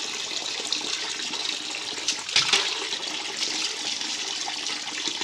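Water poured from a plastic dipper over a dog's shampooed coat, splashing and running off onto a tiled counter as the shampoo is rinsed out. The splashing grows louder about two seconds in.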